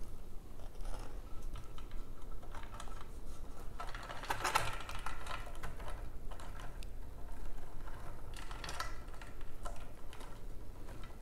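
Rustling and light clicking of plant material being handled: a palm inflorescence's beaded green fruit strands and dried palm stalks knocking together as the spray is set into an arrangement. The clicks come in denser clusters about four to five seconds in and again near nine seconds.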